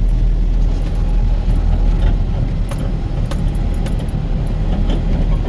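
Motor vehicle driving slowly over a rough, rutted dirt road, heard from inside: a steady low engine and road rumble with loose rattles and sharp knocks as it jolts over the bumps.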